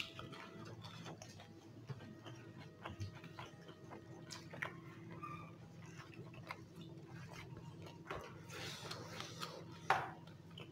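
Quiet eating sounds from two people eating with their fingers: soft chewing, lip smacks and many small mouth clicks over a faint steady hum, with a breathy hiss near the end.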